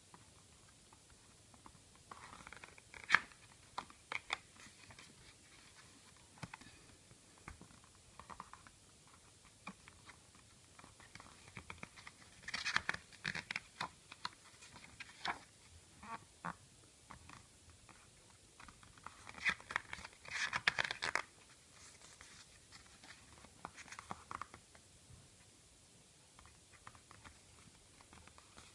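A CD album and its packaging being handled by hand: scattered clicks and taps with short bursts of rustling and crinkling. The bursts come in clusters about 3, 13 and 20 seconds in, the loudest near 20 seconds.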